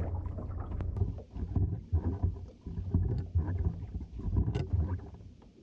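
Low, uneven rumbling of wind and water around a small open boat drifting at sea, with a few faint knocks.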